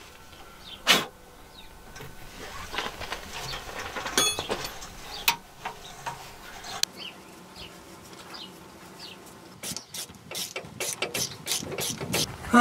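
Ratchet wrench clicking in quick strokes near the end as air brake hose fittings are tightened onto the relay valve, after scattered clinks and knocks of the wrench and fittings.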